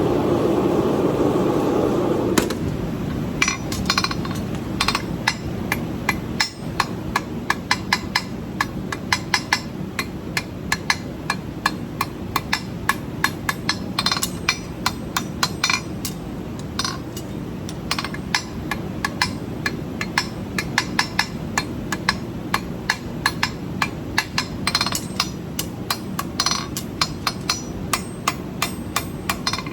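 Farrier's hammer striking a hot steel horseshoe on an anvil to shape it: runs of sharp, ringing blows, several a second, broken by short pauses. A steady rushing noise runs underneath, loudest for the first couple of seconds.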